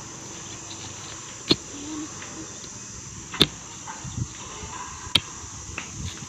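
Heavy iron digging bar (kosh) striking hard ground three times, about two seconds apart, breaking up soil to dig a planting pit. A steady high insect chirr runs underneath.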